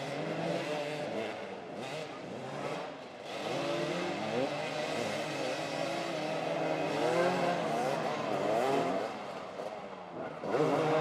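Several motoball motorcycles' engines revving up and down at once as the riders manoeuvre close together, their overlapping pitches rising and falling unevenly. The engines get louder shortly before the end.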